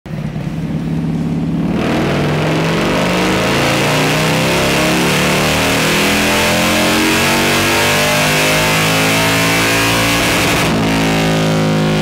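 Harley-Davidson Low Rider ST's Milwaukee-Eight 117 V-twin, built to Stage II with a 485 cam and breathing through a Feuling 2-into-1 exhaust, making a dyno pull. About two seconds in the throttle opens, and the engine note climbs steadily for some eight seconds, pulling hard under load on the rollers. Near the end the throttle is shut and the revs fall.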